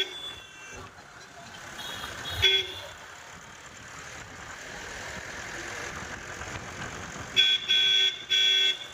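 Car horn honking: one short toot about two and a half seconds in, then three blasts in quick succession near the end, the last two held longer, over a steady background of vehicle running noise.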